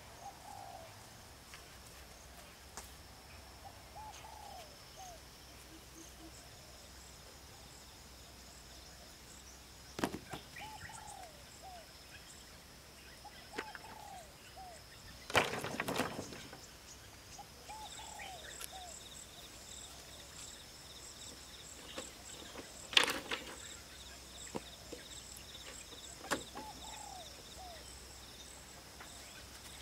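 Rural outdoor ambience: insects droning steadily at a high pitch and a bird repeating a short call every few seconds, with a few knocks and thuds, the loudest a sharp knock about two-thirds of the way through.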